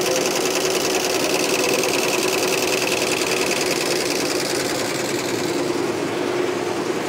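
Commercial multi-needle embroidery machines (BAi) running, the needles stitching in a fast, steady rhythm with a constant hum.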